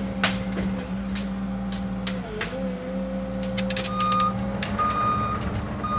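Cat 306 mini excavator's diesel engine and hydraulics running steadily, the engine note dipping briefly about two seconds in as it takes load. Its travel alarm starts beeping near the end, about once a second, over scattered sharp clicks and cracks.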